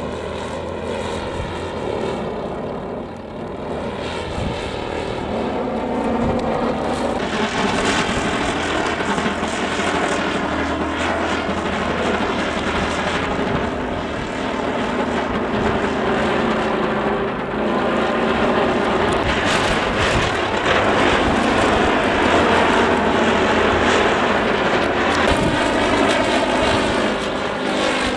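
Strong, gusty wind rushing and buffeting over the microphone, a steady rushing drone that grows louder about a quarter of the way in.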